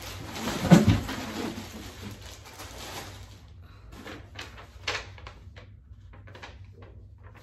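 Plastic wrapping crinkling and rustling as a bubble-wrapped package is lifted out of a cardboard box, with a loud handling bump under a second in. After about three seconds it thins to scattered short crackles of plastic and paper being handled.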